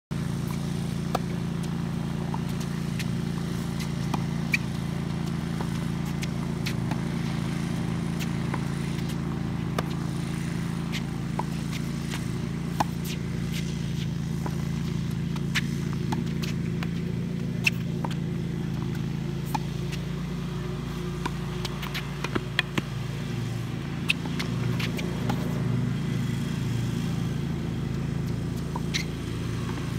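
Tennis rally: sharp pops of racket strings striking the ball and the ball bouncing on the hard court, every second or so and closer together for a stretch about three quarters of the way through, over a steady low hum.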